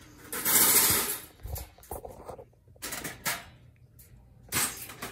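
Wire-mesh live-animal cage trap being handled during assembly: a loud scraping rustle in the first second, then a few sharp metal clicks and rattles.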